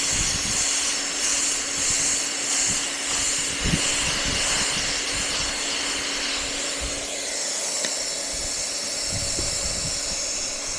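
Hand-held hot-air plastic welder running steadily, its blower and heated air nozzle giving a constant hiss over a steady low motor hum, as a TPO roofing seam is welded.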